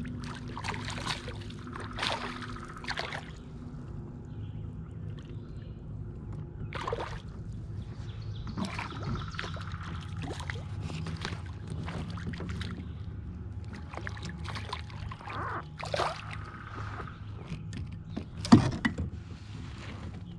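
Hooked fish splashing and thrashing at the water's surface beside a kayak as it is reeled in, with a sharp slap near the end as it is lifted out.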